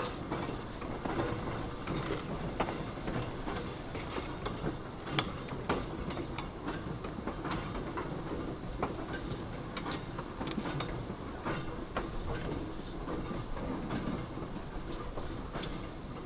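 Work train rolling along old jointed track: a steady rumble with irregular sharp clicks as the wheels pass over rail joints.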